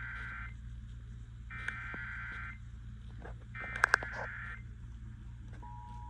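Emergency Alert System header on an FM radio's speaker: three one-second bursts of SAME digital data tones, a harsh warbling screech, each about a second apart, with two sharp clicks during the third. Near the end the steady two-tone EAS attention signal begins, marking the start of a severe thunderstorm warning broadcast.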